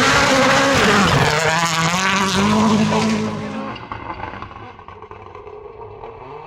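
Rally car engine at high revs going past: the note dips about a second in and climbs again, then fades quickly after about three and a half seconds as the car moves away.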